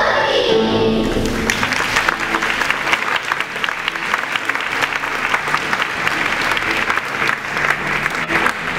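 A children's choir song ends right at the start, and an audience applauds, many hands clapping steadily.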